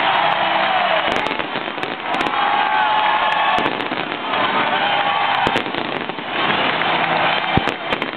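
Baseball stadium crowd cheering in a loud, steady roar, with rising and falling yells. Scattered sharp crackles run through it.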